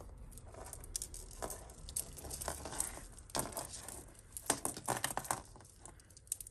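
Costume jewellery being handled and sorted: scattered light clinks, taps and rattles of metal chains and pieces, in short clusters that are busiest around the middle.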